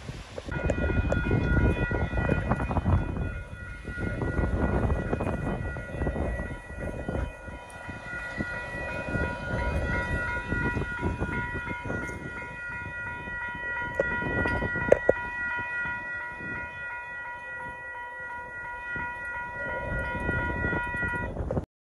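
Railroad level-crossing warning bell ringing steadily while the crossing signals flash, starting about half a second in and stopping just before the end. Under it runs a loud, uneven low rumble, strongest in the first few seconds.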